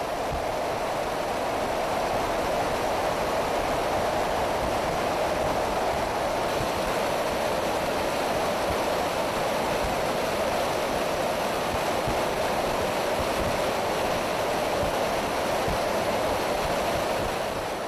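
Steady roar of jet aircraft in flight, a dense rushing noise without breaks that fades in at the start and fades out near the end.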